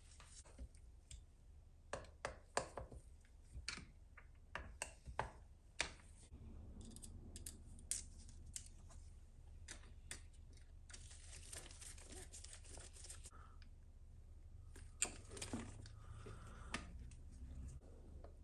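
Faint handling noise from work on an RC truck chassis: scattered light clicks and taps of small plastic and metal parts and a screwdriver, with a stretch of rustling a little past the middle.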